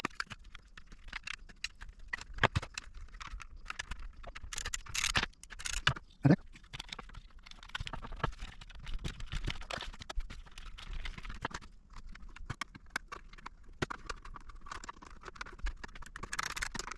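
Irregular clicks, taps and rustling of small plastic and metal parts being handled and fitted while a 1978 Mustang instrument cluster bezel is assembled with a 1/4-inch socket. A sharper knock comes about six seconds in.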